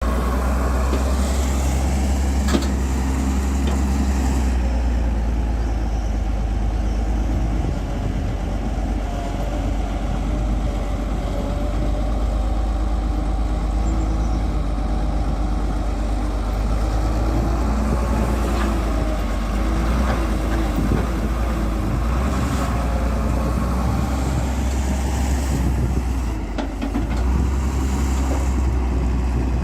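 Excavator's diesel engine running steadily at work, with several short hisses and a brief dip in engine level near the end.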